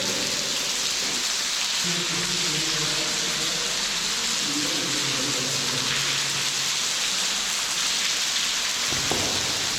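Underground waterfall in a cave: a loud, steady rush of falling water that does not let up.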